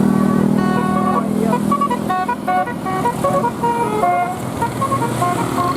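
Bus 'telolet' basuri musical air horn playing a quick melody of short notes that step up and down in pitch, over a low bus engine.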